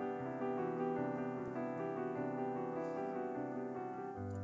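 Background piano music, held chords changing steadily, with a new lower chord coming in near the end.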